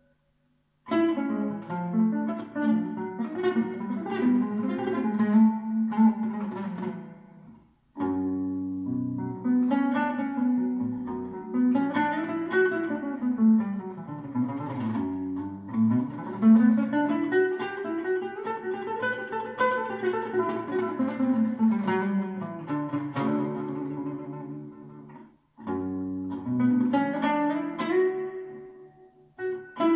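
Solo nylon-string classical guitar, fingerpicked, playing in phrases with brief pauses between them. Rising and falling runs of notes come through the middle.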